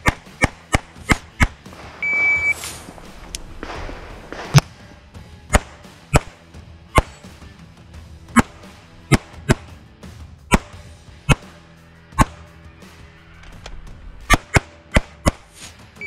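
CZ 75 TS Czechmate pistol firing rapid strings of shots, mostly in quick pairs, about two dozen in all, as the shooter engages target after target; a short electronic beep sounds about two seconds in, and faint music runs underneath.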